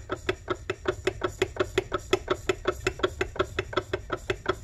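Rapid, even metallic clacking, about nine knocks a second, from the connecting rod of a 1995 Arctic Cat ZR 700 snowmobile engine as the crankshaft is rocked back and forth by hand. It is the knock of excess play in the connecting rod, at the small end or the big end, the sign of a worn rod and wrist-pin fit.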